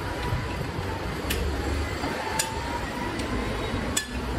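Three sharp metallic clinks, roughly a second apart, from a socket wrench and steel fork parts as the front fork of a 1976 Kinetic Luna moped is unbolted and taken off, over a steady low background rumble.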